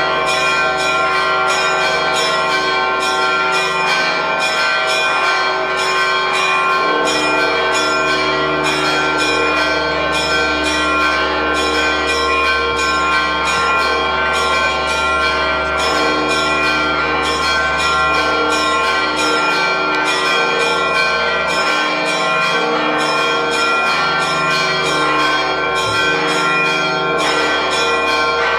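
Church bells rung by hand on ropes: a rapid, continuous peal of several bells struck in quick succession, their tones overlapping without a break. It is the festive peal rung for the descent of the Holy Fire.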